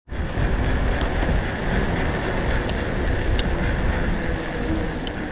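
Wind buffeting the handlebar-mounted camera's microphone as an electric mountain bike is ridden along a tarmac lane: a loud, steady rush with heavy low rumble, broken by a few sharp ticks.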